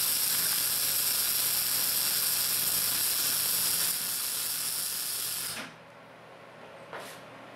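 MIG/MAG (GMAW) welding arc on steel plate, a steady sizzling crackle over a low hum, cutting off abruptly about five and a half seconds in as the bead ends.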